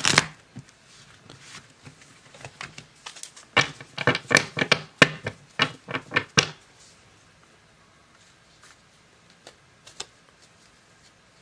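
A deck of tarot cards being shuffled by hand: a riffle shuffle's cards fluttering together right at the start, then a run of quick sharp card clicks and taps between about three and a half and six and a half seconds in, then quiet.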